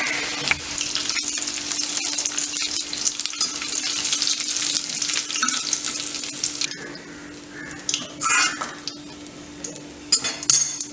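Batter-coated paneer thread rolls deep-frying in hot oil: a dense, crackling sizzle that thins out after about seven seconds, with a few louder bursts near the end.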